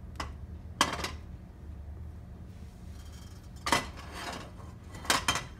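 Metal ladle clinking and scraping against a ceramic bowl of pancake batter as it is scooped. There are four clinks, two near the start and two in the second half, over a steady low hum.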